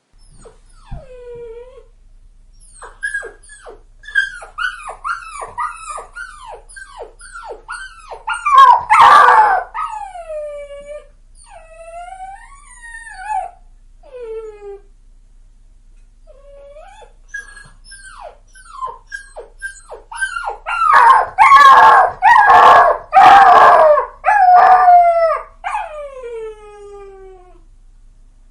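Puppy crying: runs of short, high yelps and whines, each falling in pitch. There are two louder stretches of overlapping cries, one about a third of the way in and a longer one past two-thirds, and it ends on one long falling whine.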